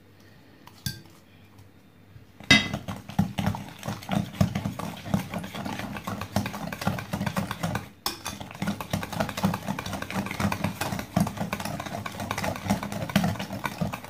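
Wire balloon whisk beating butter, sugar and eggs in a bowl by hand, the wires rattling and clicking rapidly against the bowl. It starts about two and a half seconds in and breaks off briefly around the middle.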